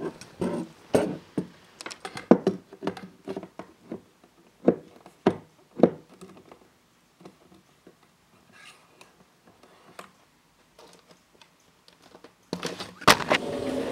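Irregular knocks and clicks in a small room, close together for the first half and sparse after. Near the end a louder, dense rustling and crackling starts.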